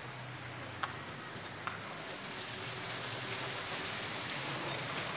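Steady hiss of water, slowly growing louder, with two faint clicks about a second in.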